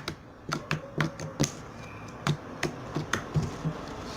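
Homemade slime being squeezed and worked in the hands, giving a run of about a dozen sharp clicking pops at irregular intervals: the slime's 'barulhinho' that shows its stretchy, airy texture.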